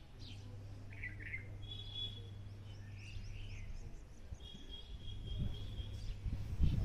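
Small birds chirping in short high notes, with two longer high trills, over a steady low hum.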